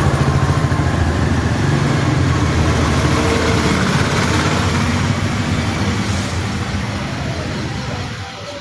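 A motor vehicle's engine running close by, loud at first and then slowly fading as it moves off along the road.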